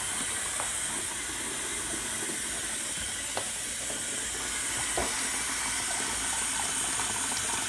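Water running steadily from a hose into the wash tub of a Kuppet twin-tub mini washing machine as it fills, with a couple of faint clicks partway through.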